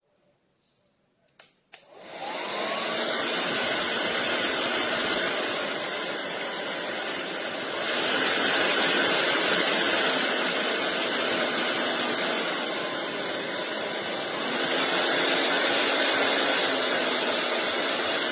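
Beurer hair dryer switched on after a couple of clicks, then blowing steadily with a faint motor whine under the air noise. Its level steps up about six seconds after it starts, drops back, then rises again.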